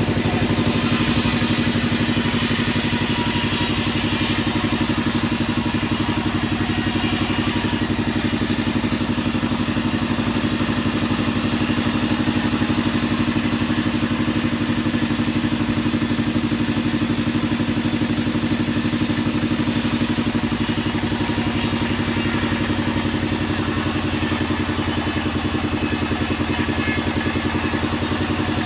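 Band sawmill running steadily: a constant machine drone with a fast, even pulsing and a hiss over it, the hiss somewhat stronger in the first third.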